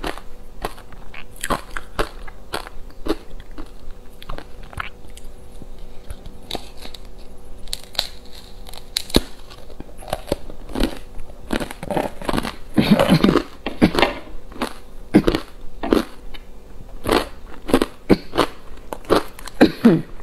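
Frozen matcha ice being scraped from a plastic tub and bitten and chewed close to a clip-on microphone: a steady run of sharp crunches, busiest a little past halfway.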